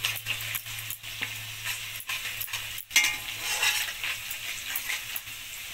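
Sliced onions, chilli and kala jeera (nigella seeds) sizzling as they fry in oil in a steel kadai, stirred so that the utensil scrapes and clicks against the pan.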